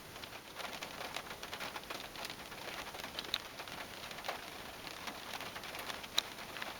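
Light rain: scattered raindrops ticking irregularly on a car's body and windshield, heard from inside the car, with a few sharper drops near the end.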